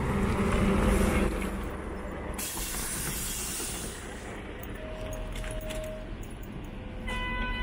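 City bus pulling up at a stop with its engine running, then a long hiss of compressed air as it halts and the door opens. A short tone sounds about five seconds in and an electronic beep near the end.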